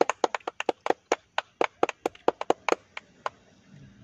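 A fast, uneven run of sharp hand claps, about five or six a second, thinning out and stopping about three seconds in.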